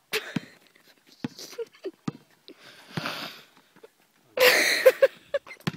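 Scattered sharp knocks and thumps from people playing basketball on the court. About four and a half seconds in comes a loud rush of breathy noise with short voice sounds in it.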